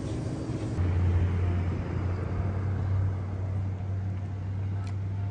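A vehicle engine running with a steady low hum, coming in about a second in after a short music tail.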